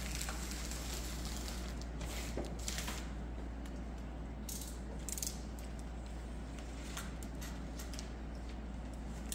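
Plastic template film rustling and crinkling in short bursts as it is unrolled off its roll and handled against a board, over a steady low hum.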